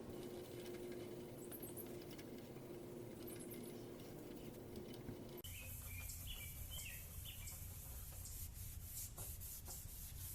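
Faint rubbing of a cloth working clarifying compound over a plastic headlight lens by hand, with a few short high chirps about six seconds in.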